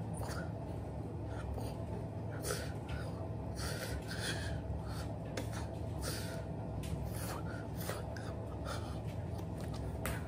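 Steady low electrical hum with irregular short breathy puffs and rustles from a person breathing through nose and mouth and moving their hands against their clothes while signing.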